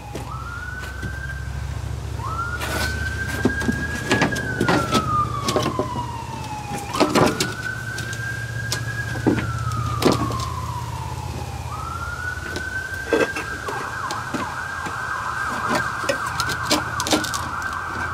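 Emergency vehicle siren wailing, its pitch rising and falling slowly over several seconds. About two-thirds of the way through it switches to a fast warble. Scattered knocks and clatter from a plywood board being handled and fitted into place.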